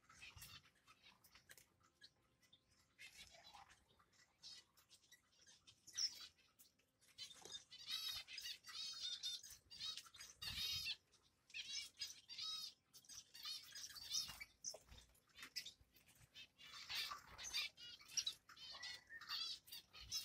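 Young finches in an aviary chirping: faint scattered ticks at first, then from about a third of the way in, clusters of rapid, high, repeated chirps from several birds.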